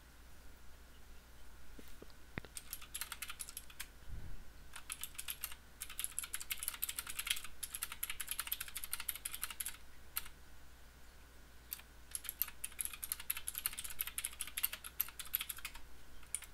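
Typing on a computer keyboard: fast, fairly quiet key clicks in two long runs, from about three seconds in to about ten seconds, then again from about twelve seconds in until near the end.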